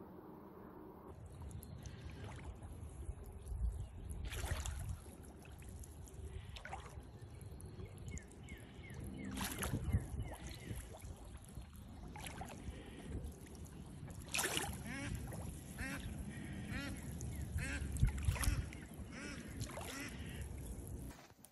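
Dark domestic duck quacking in several short runs of calls while swimming on a pond, over a low rumble.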